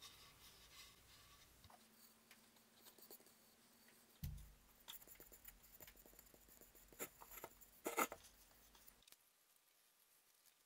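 Faint scratchy rubbing of fingers working beeswax paste finish into the inside of a plywood-and-walnut bowl. A few light clicks, a soft thump about four seconds in, and a sharper click about eight seconds in.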